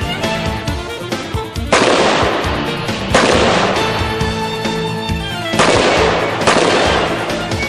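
Music with sustained notes throughout, punctuated by loud crashing hits that ring out for about a second, three of them, at roughly two, three and five and a half seconds in.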